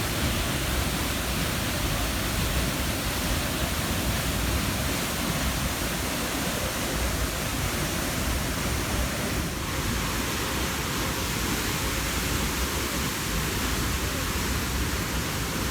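Waterfall's falling water: a steady rushing.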